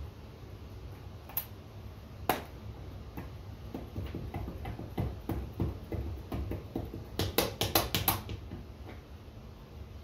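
Hands working double-sided foam tape and hard plastic boat emblem pieces, peeling the tape's liner: scattered small clicks and crackles, one sharp click about two seconds in, and a quick run of sharp clicks near the end.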